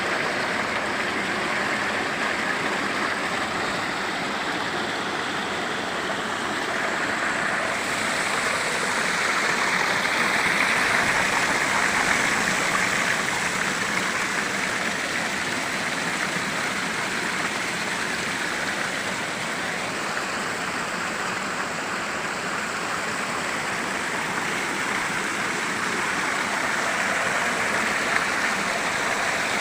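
Steady rush of a waterfall's falling water, an even continuous noise that swells slightly about ten seconds in.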